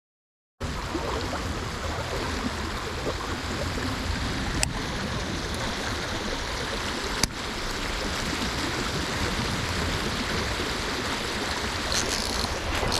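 Shallow creek water rushing over a riffle: a steady wash of running water that starts just under a second in, with two sharp clicks about four and a half and seven seconds in.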